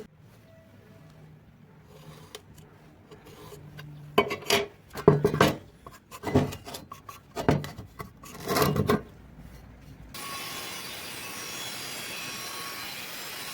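A hand file rasped across the end of a steel pipe in about six hard strokes, shaping it to fit against a round pipe. Then a steady, even hiss.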